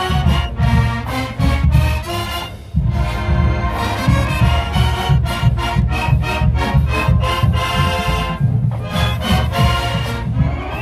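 College marching band playing: brass phrases in short punchy notes over a heavy bass drum and percussion beat, with a brief break about two and a half seconds in.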